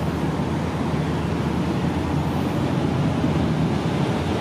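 Diesel railcar approaching slowly, its engine running with a steady low rumble that grows slightly louder.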